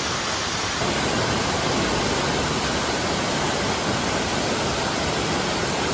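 Steady rush of a waterfall's falling water, an even wash of noise echoing inside a cave. About a second in it turns slightly brighter.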